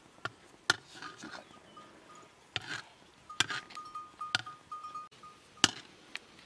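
Metal ladle knocking and scraping against a cooking pot as curry is stirred, in a scatter of sharp clinks. A thin, high, repeated chirping joins about halfway through.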